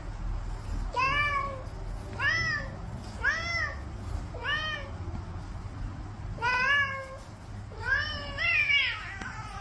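A domestic cat meowing repeatedly, about seven rising-and-falling meows roughly a second apart, the last two coming close together near the end.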